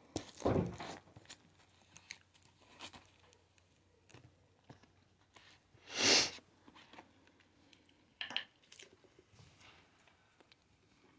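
Close-up chewing and crunching of hot Cheeto-crusted fried pickles, in scattered short bursts with a few louder crunches, the loudest about six seconds in.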